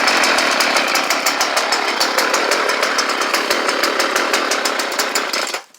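Two-stroke chainsaw of about 2000 vintage running steadily after a winter cold start, warming up, with a fast even pulse from its engine. It stops abruptly about five and a half seconds in.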